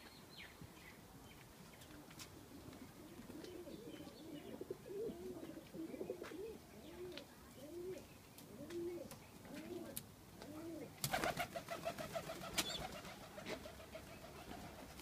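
Pigeon cooing: a run of low, arched coos, about two a second. About eleven seconds in, a louder, harsher sound breaks in, and a buzzy tone carries on to the end.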